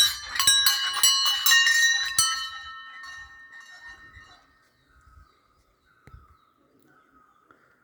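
Temple bells ringing with rapid repeated strikes, several pitches clanging over one another for about two seconds, then the ringing dies away over the next two seconds. A faint steady high tone and a soft thump follow.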